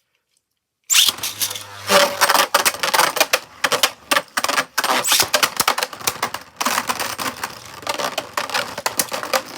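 Two Beyblade Burst tops, Ultimate Valkyrie and Infinite Achilles, launched into a plastic stadium about a second in, then spinning and clashing with dense, rapid rattling clicks and knocks.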